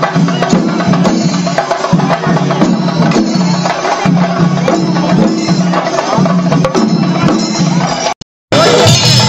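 Percussion-led music with a steady, regular drum beat and many sharp wooden clicks.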